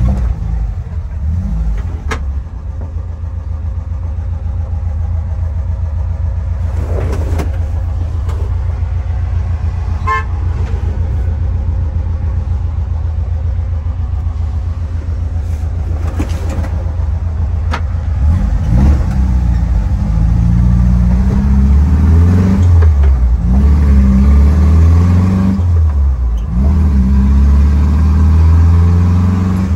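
Classic VW Transporter's air-cooled flat-four engine running while the bus is driven, heard from inside the cab. In the last third the engine gets louder, its pitch rising and falling as it is revved through the gears.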